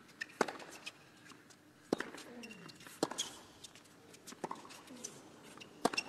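Tennis rally on a hard court: a ball struck back and forth by racquets, five sharp pops about every second and a half, over a hushed arena.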